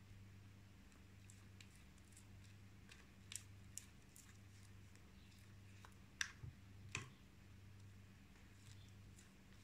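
Faint clicks and taps of a spatula on a glass mixing bowl as thick cake batter is scraped out into a bundt tin, a handful of them, the two loudest about six and seven seconds in, over a steady low hum.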